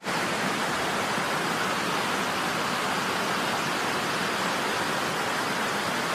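Steady rush of a river in flood, fast muddy water pouring over and around a low bridge. A constant, even noise with no breaks or changes.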